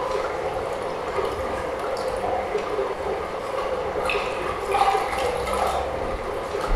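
Improvised live soundscape of liquid sloshing and trickling with scattered small clicks, a dense steady texture that swells briefly about five seconds in.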